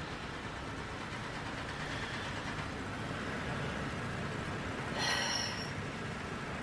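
Steady low rumble of car and traffic noise heard from inside a car's cabin, with a brief louder hiss about five seconds in.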